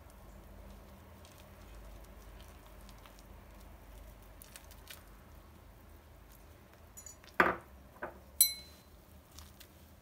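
Soft scraping and squelching as ground red pepper purée is poured from a glass and scraped into a glass bowl of flour with a silicone spatula. A bit over seven seconds in, two knocks are followed by a sharp clink of glass against glass that rings briefly.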